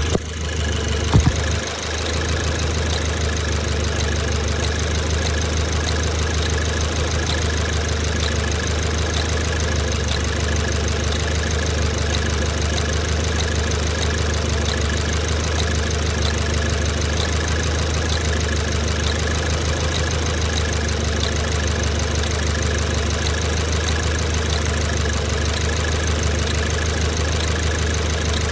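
Toyota 86's flat-four engine idling steadily, with a regular light ticking that the owner hears as an odd noise from the driver-side injector area. A brief knock about a second in.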